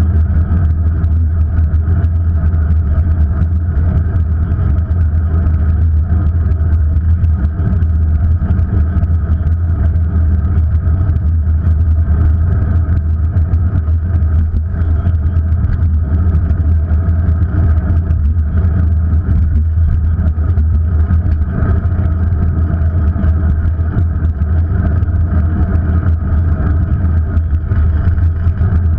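Engine of the vehicle carrying the camera running at a steady, even pitch as it cruises, with a loud low drone of wind and road noise.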